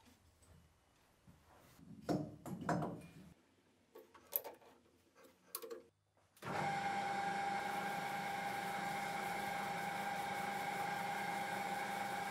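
Metal parts knocking and clinking as they are handled on a workbench. About halfway in, a metal lathe starts running steadily with a high hum, spinning a finned aluminium engine cylinder.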